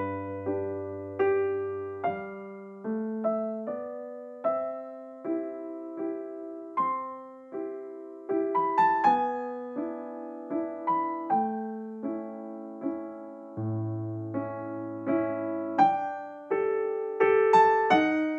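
Background music: a slow keyboard melody of single struck notes that each fade away, over a low bass note held near the start and again about two-thirds of the way through.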